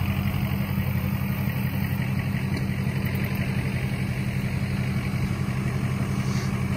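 Ford Super Duty pickup's engine idling steadily with an even low hum.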